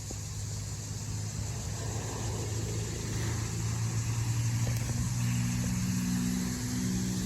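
A motor vehicle's engine running close by, its hum growing steadily louder over several seconds.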